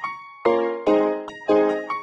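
Background piano music: chords struck about every half second, each one fading before the next.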